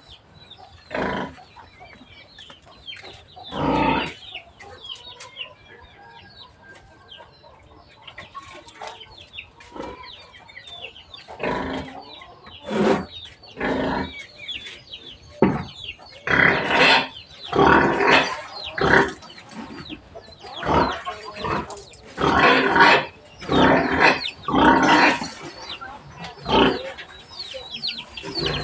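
Pigs squealing in their pens and chickens clucking, with faint high chirps throughout. A few calls come early, and they grow thicker and louder from about halfway through.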